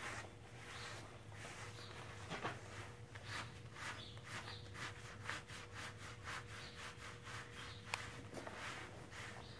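Rubber-nubbed HandsOn grooming gloves rubbing a horse's coat in quick, even strokes, about two a second.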